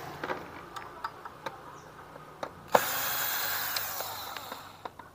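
Handheld power tool, a drill-type driver, running in one steady burst from about three seconds in, with sharp metal clicks and taps before and after it, as the scooter's rear-end bolts are undone for disassembly.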